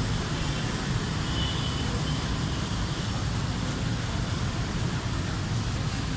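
Steady outdoor background noise: a low rumble with hiss above it, unbroken throughout, like road traffic or wind on the microphone.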